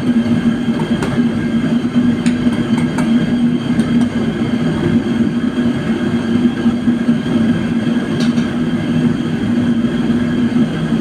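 A loud, steady machine hum with a strong low tone, and a few light clicks over it.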